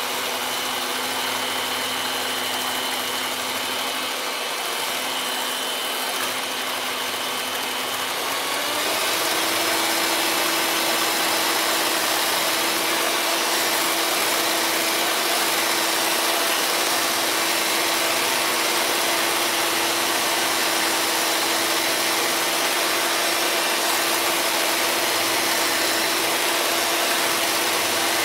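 Electric hand mixer whipping heavy cream in a glass measuring cup: a steady motor whine that steps up to a higher pitch and gets a little louder about nine seconds in.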